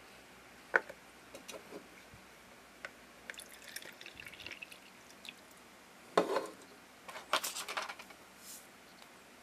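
Water poured from a plastic measuring cup into a small clear plastic toy container, trickling and splashing for about a second and a half. Sharp clacks of hard plastic pieces being handled and set down come before and after, the loudest about six seconds in.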